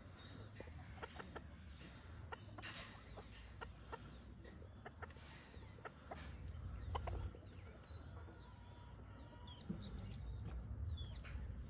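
Chickens clucking, with short high chirps and scattered clicks over a steady low rumble.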